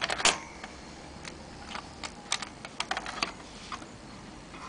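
Small clicks and taps of a processor being seated in an LGA 775 socket and fingers handling the socket and board: a sharp double click right at the start, then about ten light, irregular ticks.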